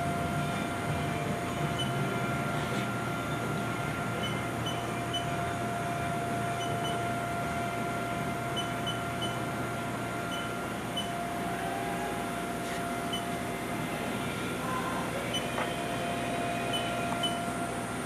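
Haas VF-3 vertical machining center standing powered up: a steady mechanical hum with a constant mid-pitched whine.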